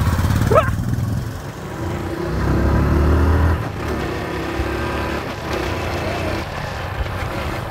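A motor vehicle's engine running with a steady low rumble that grows louder from about two to three and a half seconds in.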